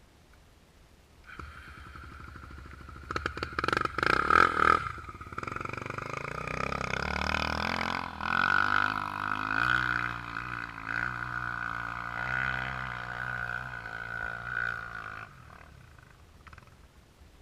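Four-stroke trail motorcycle engine working hard under throttle, climbing, with a loud burst of crackling noise a few seconds in, then a steady pull that cuts off sharply about fifteen seconds in.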